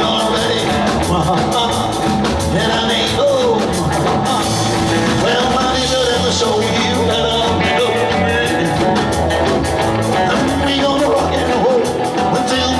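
Live rock and roll band playing a song with a steady beat.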